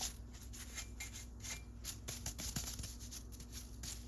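Quick scratchy scrubbing strokes against rusty metal on an old leather splitter, about two a second.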